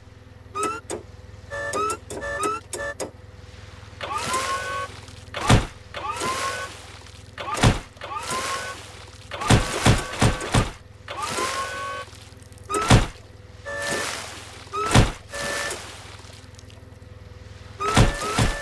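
A cartoon forklift rams a beached whale over and over, with heavy thuds at uneven intervals, some in quick runs. Before several thuds the motor whines upward in pitch, and between them come short reversing beeps as it backs off.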